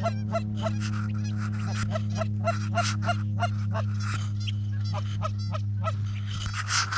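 Rapid Canada goose honks and clucks, about three short notes a second, from hunters' goose calls and the geese working toward the decoys, over a steady low hum.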